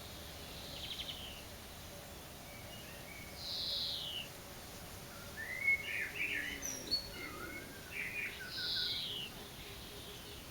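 A songbird singing short whistled phrases. A clear down-slurred whistle comes about three and a half seconds in, a longer warbling, twittering phrase follows, and another down-slurred whistle comes near the end.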